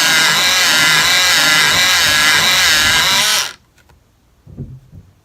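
Electric pencil sharpener motor running and grinding a pencil, its pitch wavering under the load, stopping suddenly about three and a half seconds in. Then two soft knocks.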